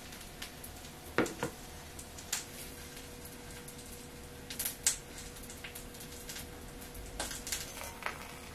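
Tableware handled on a wooden tray: light knocks and clicks as a small porcelain dish is set down and pickled plums are placed in it, about ten separate taps, the heaviest about a second in. A faint steady hum runs underneath.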